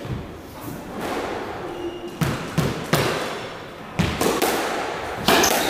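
A squash ball being struck by rackets and smacking off the court walls and floor: a series of sharp, echoing cracks spaced irregularly, about half a dozen over several seconds.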